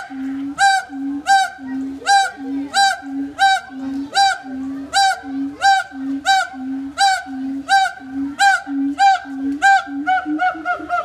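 Siamangs calling: a low note alternating with a loud, higher whoop that rises and falls, repeated about twice a second and quickening near the end.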